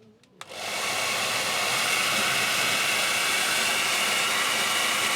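GHD Air 1.0 hairdryer switched on with a click about half a second in, its motor and fan spinning up within a second into a steady rush of blowing air. The dryer is being test-run after a service and reassembly.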